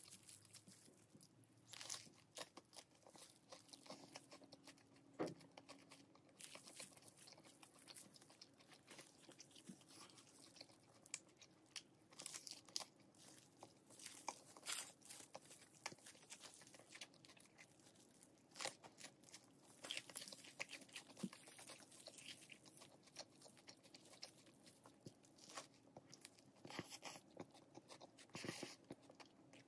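Close-up eating sounds: crunchy biting and chewing of a tortilla wrap filled with crisp lettuce and glazed fried chicken, in irregular quiet crunches.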